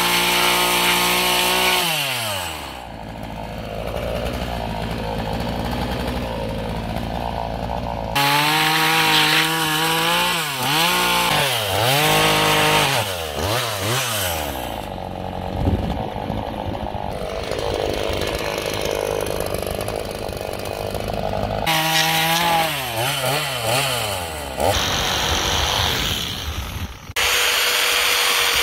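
Chainsaw cutting into a squared timber, its pitch repeatedly dropping and climbing again as the saw works through the wood. Near the end a reciprocating saw takes over with a steadier tone.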